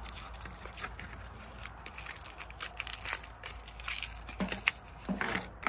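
Spark plugs' plastic-and-card blister packs crackling and crinkling as they are torn open by hand, a run of irregular sharp crackles.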